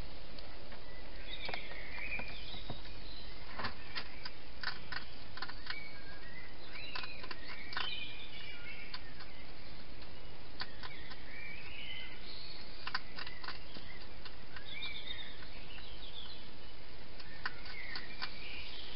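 Songbirds calling and singing in short rising and falling chirps, over a run of sharp clicks and crunches from a hedgehog feeding at a bowl in a plastic feeding box. A steady hiss runs underneath.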